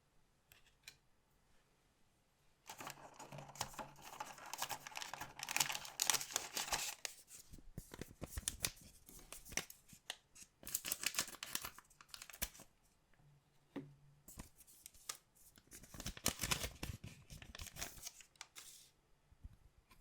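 Foil-wrapped collectible card packs being opened by hand: bursts of wrapper tearing and crinkling starting about three seconds in, with sharp clicks and rustles of cards being handled between them.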